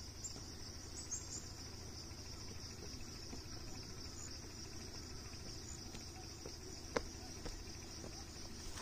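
A steady, high-pitched chorus of insects, a continuous shrill buzz, with one sharp click about seven seconds in.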